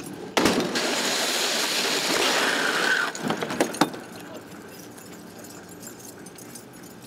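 A small helicopter hitting the ground in a crash drop test: a sudden impact about half a second in, then a loud noisy clatter for about two and a half seconds, a couple of sharp knocks, and a fade to a low rumble of settling debris.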